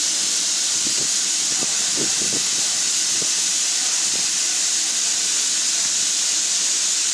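Steady hiss of steam escaping from a standing narrow-gauge steam tank locomotive, No. 8.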